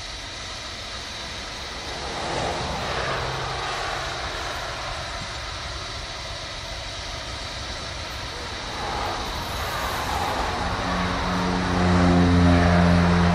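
Diesel locomotive approaching at low speed, its running sound growing louder as it nears. Near the end a strong steady droning tone with several pitches sets in and becomes the loudest sound.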